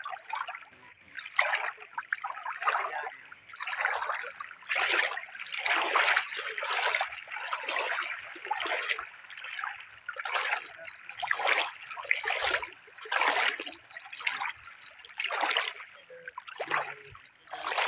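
Shallow river water splashing and sloshing in a steady rhythm, about one swash a second, from someone wading through it.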